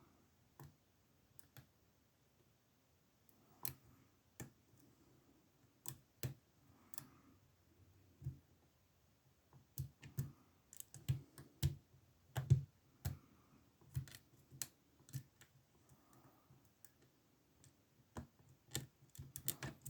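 Faint, irregular clicks and taps of a deep hook pick and tension wrench working the pins inside a SIL 30 mm padlock, sparse at first and coming more often in the second half.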